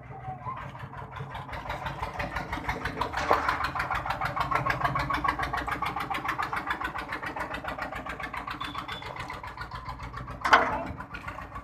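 A motor running with a fast, even pulse. One sharp bang comes near the end.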